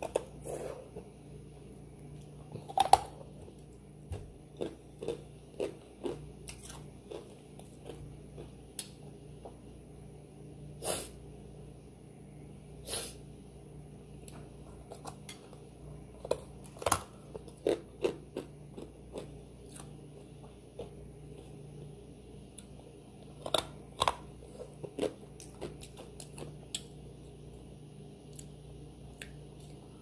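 Close-miked eating: a person biting and chewing, with irregular crunchy bites and sharp mouth clicks, a few of them much louder than the rest.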